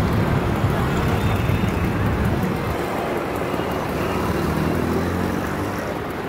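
Steady street traffic rumble, with the engine note of a passing vehicle rising out of it about four to five seconds in.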